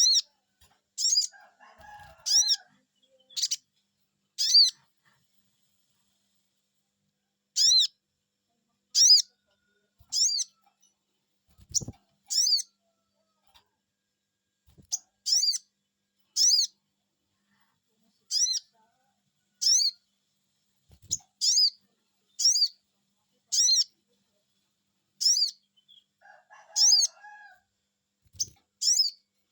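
Sogon bird giving its sharp, high 'cuiit cuiit' call: short whistled notes that rise and fall, repeated about once a second in runs, with pauses of a couple of seconds between runs. This is a lure call used to make another sogon bird answer.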